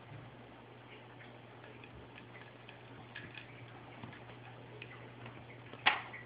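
Small, irregular ticks and taps of an ocicat kitten batting a plastic straw about on a couch, with one much louder sharp noise near the end as she lunges. A steady low hum runs underneath.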